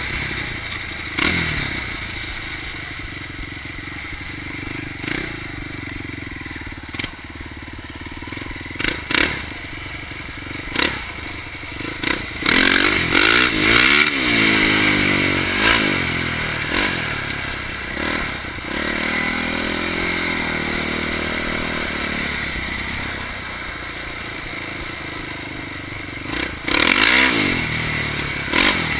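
2004 Polaris Predator 500 quad's single-cylinder four-stroke engine being ridden, revving up and down, hardest a little before halfway and again near the end. Several sharp knocks and clatter come through along the way.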